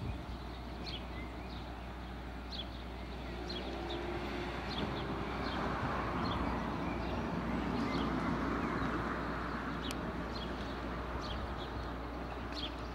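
A road vehicle going past, its noise swelling and fading over several seconds, with small birds chirping again and again throughout.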